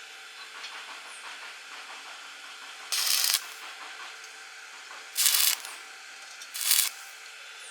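Welding arc struck three times in short bursts of crackling hiss, each about half a second long, over a faint steady hiss.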